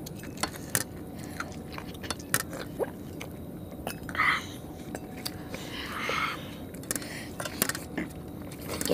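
Eating by hand: chewing, lip smacks and fingers mixing rice and chicken curry on steel plates, heard as many small clicks. A louder short sound comes about four seconds in as one eater drinks from a steel tumbler.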